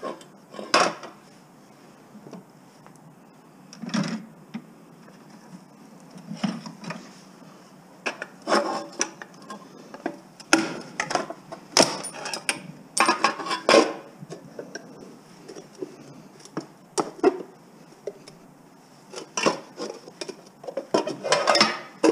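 Scrap metal parts clinking and clattering in irregular bursts as an item is taken apart by hand.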